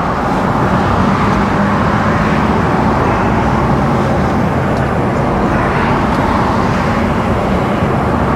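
Mercedes-Benz Actros lorry cruising on the road: a steady engine drone under road and tyre noise, heard from the cab.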